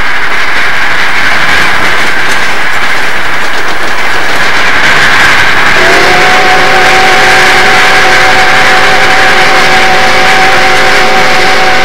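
Southern Pacific AC-11 cab-forward steam locomotive working at maximum effort upgrade, its exhaust a loud, rapid, continuous rush. About six seconds in, its whistle opens with a slight rise in pitch and then holds a steady several-note chord.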